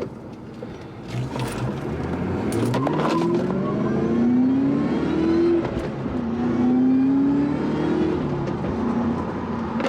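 Supercharged 4.6-litre V8 of a 2003–04 Mustang SVT Cobra accelerating hard, its engine note climbing steadily and falling sharply at two gear changes, about halfway through and near the end.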